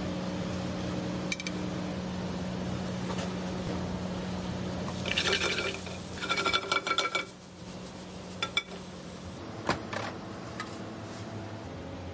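Steel sauté pan on a gas range: oil being poured in, then a few seconds of metallic clatter and clinks from the pan about halfway through, over a steady low hum.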